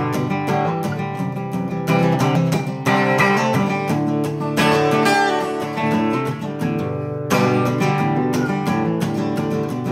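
Acoustic guitar strumming chords, the instrumental intro of a country song, with no singing yet.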